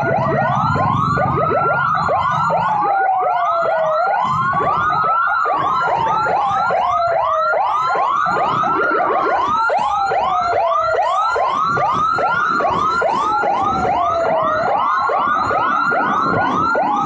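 Two electronic emergency sirens sound at once. One is a slow wail that climbs quickly and sinks over about two seconds, repeating about every three seconds. Over it, a fast yelp sweeps up several times a second.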